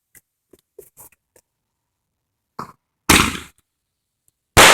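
Consumer fireworks going off: a small pop, then two loud bangs about a second and a half apart, one about three seconds in and one near the end, each dying away quickly. A few faint ticks and crackles come before them.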